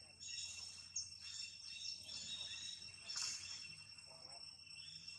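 Insects trilling steadily and high-pitched in the background, with a few faint clicks and one brief louder noise about three seconds in.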